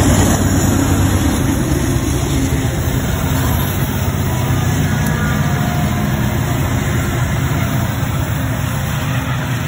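Diesel-electric locomotives passing close by, with Montana Rail Link helper units at the rear of a departing grain train: a loud, steady, low engine drone that eases off slightly near the end.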